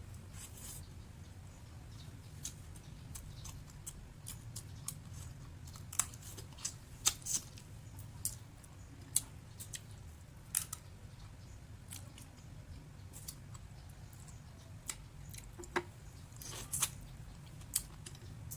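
Close-up eating of crunchy sun-dried leas hal: irregular sharp crunches and crackles as it is bitten and chewed, most frequent around the middle and again near the end, over a low steady hum.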